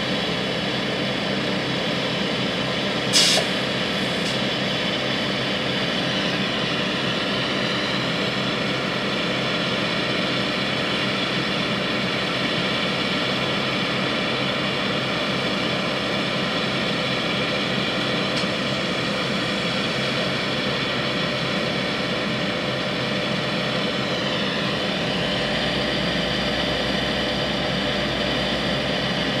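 John Deere tractor's diesel engine running steadily under load while its hydraulic high-dump wagon raises and tips a load of chopped corn silage into a dump truck. A single sharp clank about three seconds in.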